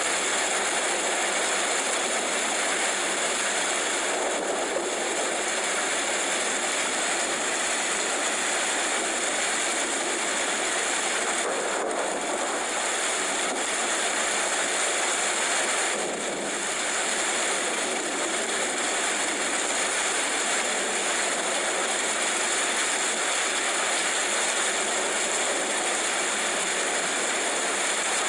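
Steady rainfall: an even, unbroken hiss of rain with no single drops standing out.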